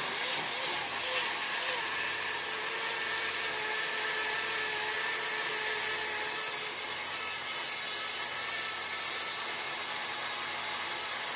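Small push-down personal blender running steadily, its motor grinding rolled oats into a thick pancake batter.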